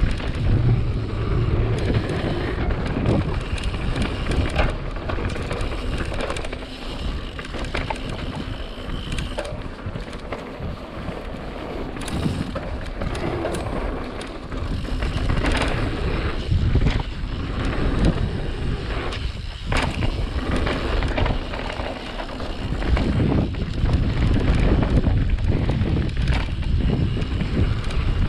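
Wind buffeting the microphone of a rider's camera during a fast mountain-bike descent, with the rumble of tyres on dirt and frequent short rattles and knocks from the bike over rough ground.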